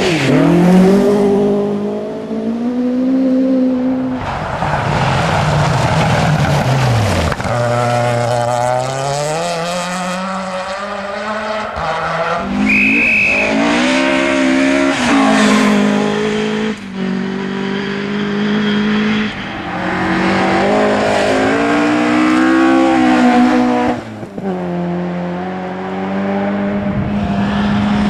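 Ford Escort rally cars at full throttle on gravel forest stages, one after another, engines climbing in pitch and dropping back repeatedly through gear changes and lifts. A brief high squeal sounds about halfway through.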